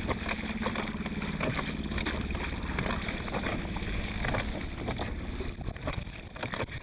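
Wooden rowboat being rowed through choppy water: oars splashing and knocking irregularly, over a steady low rumble of wind on the microphone.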